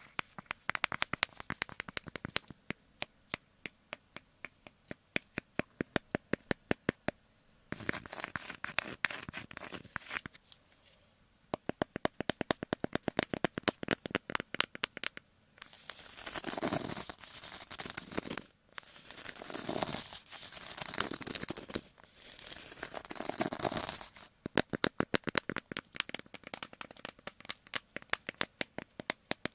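Ear-cleaning ASMR sounds: rapid scratchy crackling clicks of an ear pick, with a few seconds of louder scraping and rubbing sweeps in the middle.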